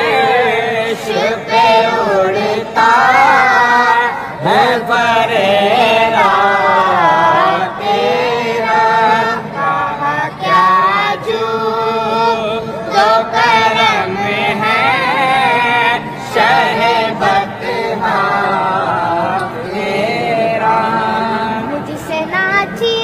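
A young boy singing a devotional Urdu song in long, drawn-out phrases, his voice sliding up and down in pitch with ornamented turns.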